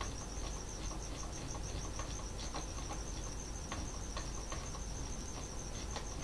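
An insect trilling: a steady, high-pitched pulsing trill, several pulses a second, with scattered soft clicks from a mouse scroll wheel as pages are scrolled.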